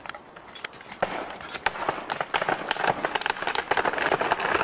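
A felled tree going over: wood cracking and branches snapping in a dense, rapid crackle that starts about a second in and grows steadily louder as the trunk falls.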